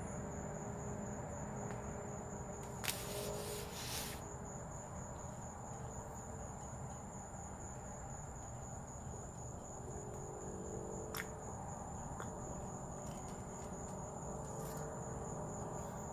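Crickets chirring in a steady high trill, with a few soft clicks and taps of handling about three to four seconds in and again around eleven seconds.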